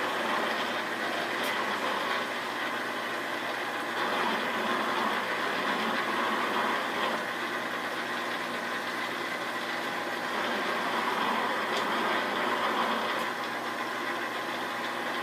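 Valve seat machine's spindle turning a 70-degree bowl hog as it cuts into a cylinder head's valve throat, running steadily with a hum and a slightly wavering level. The cut opens up the throat to take the load off the seat cutter for larger 2.02 valves.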